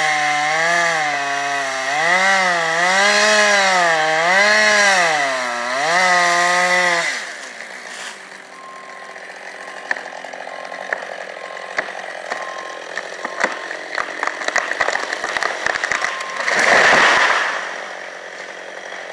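Chainsaw engine running hard in a cut, its pitch repeatedly dipping and rising with the load, for about seven seconds. It then cuts out to a quieter stretch of scattered cracks and clicks, with a brief noisy surge near the end.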